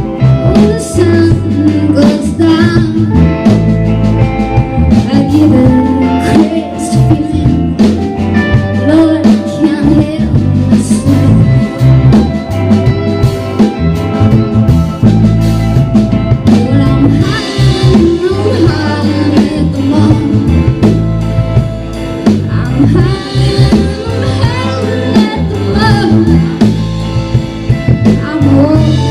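Live roots-rock band playing a bluesy, country-tinged song: a woman sings lead over electric guitar, bass and drum kit. The music is loud and continuous, with the singing rising and falling over the steady band.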